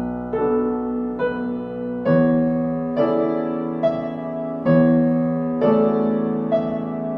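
Background music: soft piano or electric piano chords, a new chord struck about once a second.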